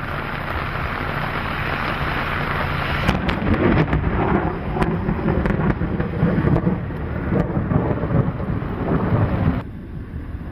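Thunder rumbling over a steady rushing hiss, the rumble swelling a few seconds in, with a few scattered clicks; the sound drops off abruptly near the end.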